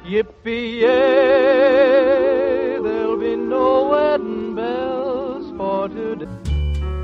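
Music: a singer holds a long note with wide vibrato over a steady accompaniment, then sings shorter phrases. About six and a half seconds in, a different piece with a heavy bass cuts in.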